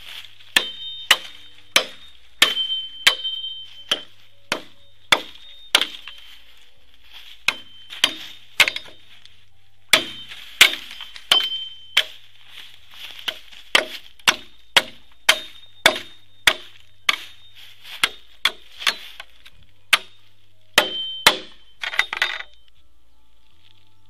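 Machete chopping into a green bamboo culm: repeated sharp blows, roughly one to two a second with short pauses, each a crack with a brief metallic ring from the blade. A quick flurry of blows comes near the end.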